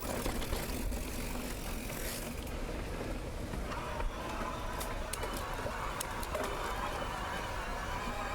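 Mountain bike riding down a dirt trail: steady rumble of tyres and wind with scattered sharp clicks and rattles. From about halfway in, a wavering, buzzing tone joins it.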